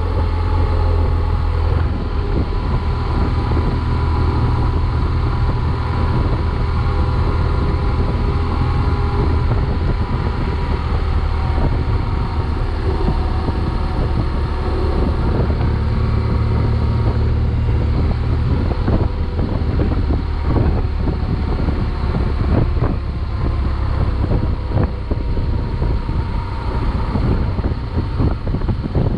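BMW GS adventure motorcycle engine running at a steady cruising speed, with wind rushing over the microphone and gusting more unevenly in the second half.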